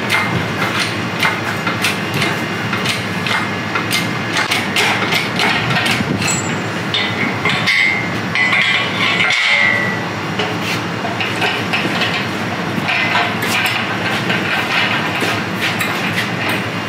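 Repeated metallic clanks and knocks from a workshop engine crane and its lifting chain as an engine hanging from it is raised and moved, with a short high squeak about eight seconds in and again about nine seconds in.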